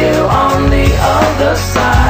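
Pop-rock song playing: a band with a steady bass under a wavering melodic line.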